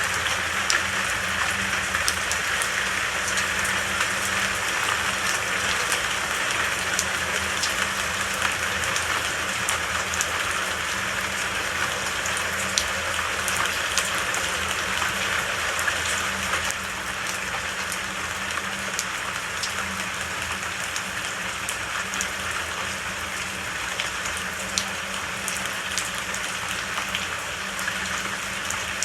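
Steady rain falling, a dense even hiss dotted with sharp individual drop impacts. It eases slightly a little past halfway.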